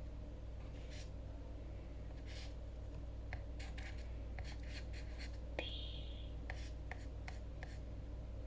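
Hands handling small objects at close range: scattered light clicks and rubbing, thickest in the second half, over a steady low hum.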